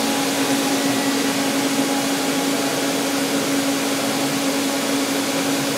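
Steady machine hum with a constant low drone from a powered-up DMG Mori Sprint 42 CNC Swiss lathe, with no cutting or axis moves heard.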